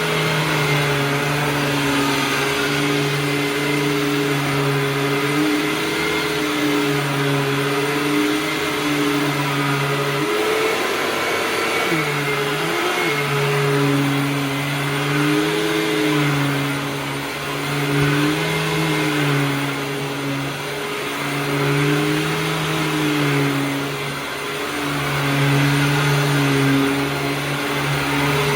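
2002 Hoover WindTunnel Supreme U5456-900 upright vacuum cleaner running, a loud motor hum over a hiss. Its pitch rises and dips every couple of seconds, with a bigger swing about ten seconds in.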